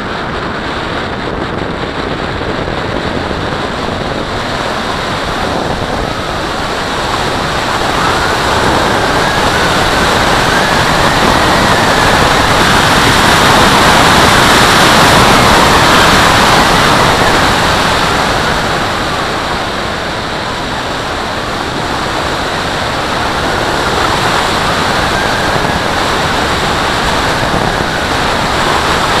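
Rushing wind from airflow over a radio-controlled Valenta Salto H101 glider's wing, heard at its onboard camera in gliding flight. It swells to its loudest in the middle, then eases, with a faint whistle that rises and falls as the airspeed changes.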